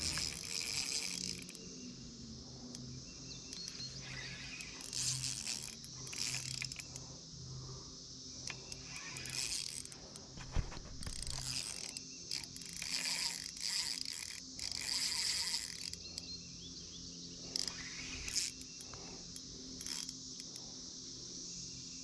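Fishing reel clicking in short, irregular spells as a hooked fish is played, over a steady chirring of insects.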